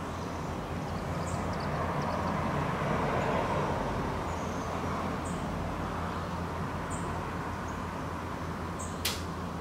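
Steady outdoor background noise with a low hum underneath. The noise grows louder about two seconds in and fades back by about five seconds. A few faint, short, high chirps are scattered through it, and there is a single sharp click near the end.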